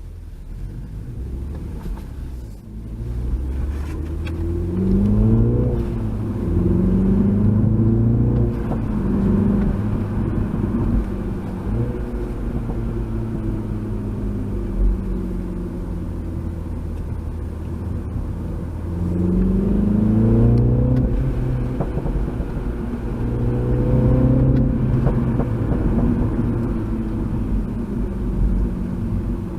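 Mini John Cooper Works F56's 2.0-litre turbocharged four-cylinder engine and exhaust under hard acceleration through the gears of its six-speed manual. The revs climb and drop back at each upshift, in two bursts, with a steadier stretch between them.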